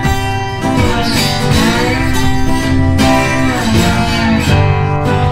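Background music led by guitar, with steady bass notes.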